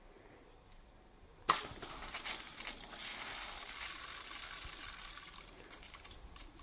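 Homemade auto-tracking water turret starting to fire about a second and a half in with a sharp onset, then spraying water in a steady hiss with small crackles.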